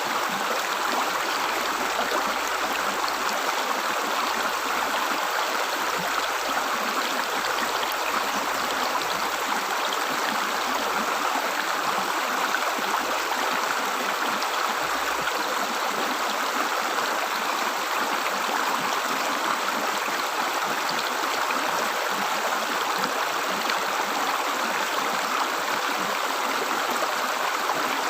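River water gurgling and rushing steadily over rocks, an even flow that does not change.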